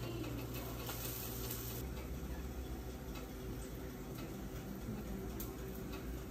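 A few faint light clicks of a spatula against a skillet and plate over a steady low hum.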